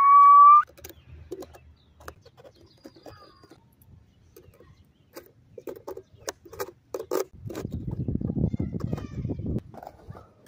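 Skateboard hardware being worked on: scattered light clicks and knocks of a skate tool, trucks and wheels during a bearing and wheel change, with a low rough rumble for about two seconds past the middle. It opens with a brief, loud, high-pitched voice-like squeal.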